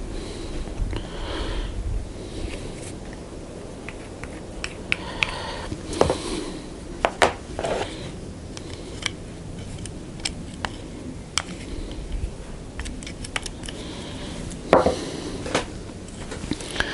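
Scattered small clicks, taps and scrapes of hands working thick grease into a plastic trunk-lid stop and its spring seats, over a low steady background hiss.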